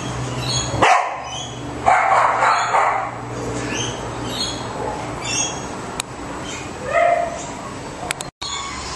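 A dog barking a few times: a sharp bark about a second in, a longer burst around two seconds, and another bark near seven seconds, with short high chirps scattered between them.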